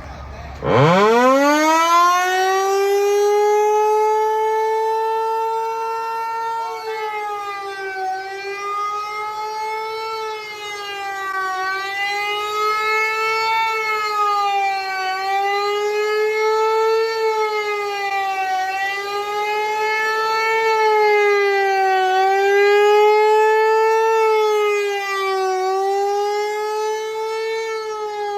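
Equinox outdoor tornado warning siren starting up: its pitch sweeps quickly up from low to a loud, steady howl. From about seven seconds in it sounds the fast wail, a rare tone, with the pitch rising and falling about every three and a half seconds.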